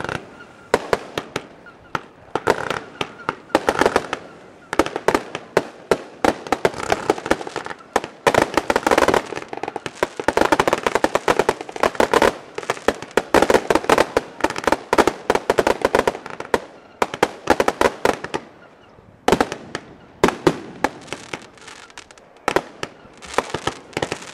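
Fireworks finale: a dense barrage of aerial bursts going off in rapid succession, bangs mixed with crackle. It is thickest midway, thins briefly about three-quarters of the way through, then picks up again.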